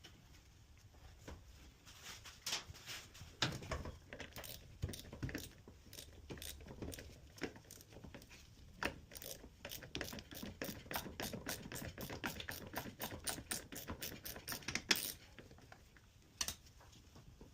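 Clicks and light knocks of hand work with tools and parts on a washing machine, with a quicker run of clicks, about three a second, from about nine to fifteen seconds in.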